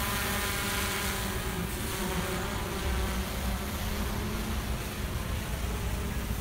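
Multirotor drone's propellers buzzing steadily in flight, a whining hum with a slight wobble in pitch over a low rumble.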